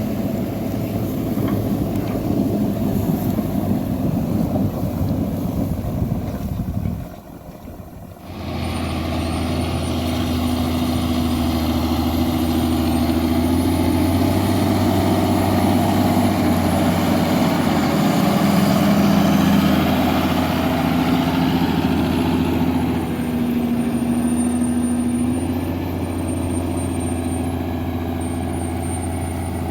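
John Deere 7430 Premium tractor's six-cylinder diesel engine working steadily under load while it pulls a slurry tanker with soil injectors. About seven seconds in the sound drops briefly, then the engine comes back as steady as before.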